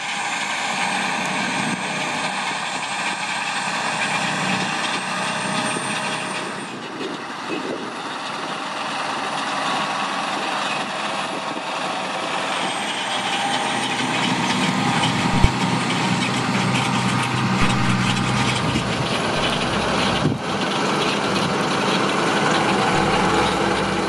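CLAAS Axion tractor diesel engines running steadily under load while pulling reversible ploughs. The sound shifts abruptly twice, about seven and twenty seconds in, and one sharp knock is heard about fifteen seconds in.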